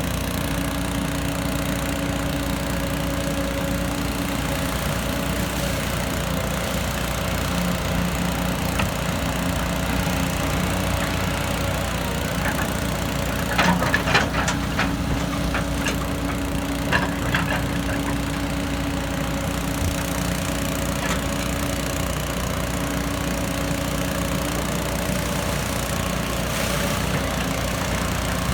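Excavator's diesel engine running steadily, with a cluster of sharp knocks and scrapes about halfway through and a few more a few seconds later.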